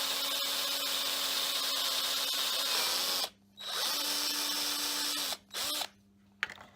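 Electric drill with a 5mm bit drilling through a plastic clip and wood: a steady motor whine over a cutting hiss for about three seconds, a brief stop, a second run of almost two seconds at a slightly higher pitch, then a short blip before it stops near the end.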